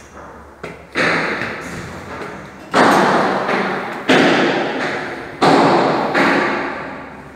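About five heavy thuds at uneven intervals, each followed by a long echo that dies away over about a second in the bare, hard-surfaced rooms.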